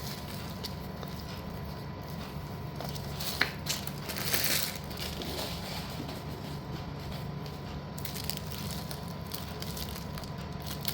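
Slate pieces and their packaging being handled, with a sharp click a little over three seconds in and a brief crunchy rustle just after.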